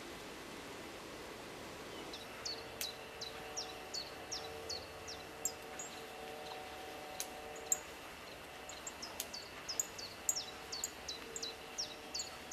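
Outdoor ambience with a bird calling in a long series of short, quick falling chirps, roughly two a second, beginning about two seconds in. Under them lie a steady hiss and a faint steady hum.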